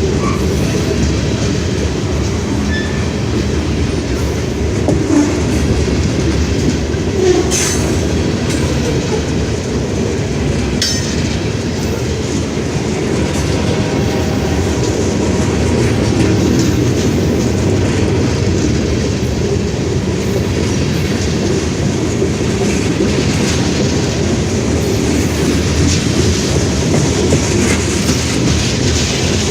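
Freight train cars rolling past: a steady rumble of wheels on the rails with clatter and a couple of sharp clicks.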